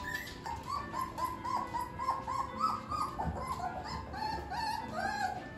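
Nineteen-day-old Shepsky puppies whimpering in a quick run of short rising-and-falling cries, about three or four a second.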